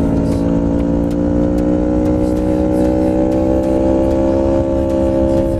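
Sport motorcycle engine pulling hard under acceleration, its pitch rising slowly through the gear, then dropping suddenly near the end as it shifts up.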